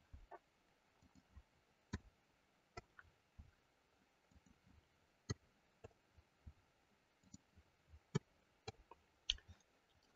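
Faint, irregular clicks of a computer mouse and keyboard keys: single sharp clicks spaced unevenly, about fifteen in all.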